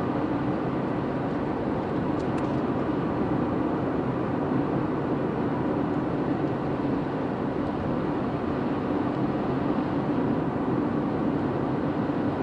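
Car driving at a steady speed, heard from inside the cabin: an even rumble of road and engine noise with a low steady hum.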